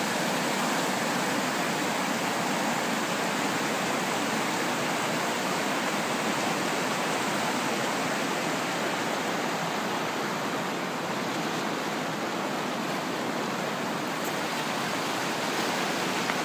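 Whitewater rapids of a fast mountain creek, heard close: a steady, even rushing of water.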